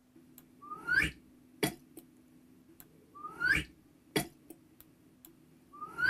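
A short sound effect played back twice: each time a rising whistle-like sweep, then a sharp click about two-thirds of a second later. A third playback begins near the end.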